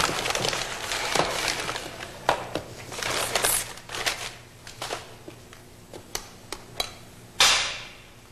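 Paper wrapping crinkling and rustling in irregular bursts as a parcel is unfolded by hand, with one louder rustle near the end.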